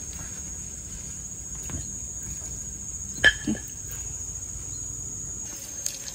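Insects shrilling steadily in one high, unbroken note, with a few light clicks of a metal fork against a ceramic plate as cooked fish flesh is picked from the bones; one sharp clink about three seconds in is the loudest sound.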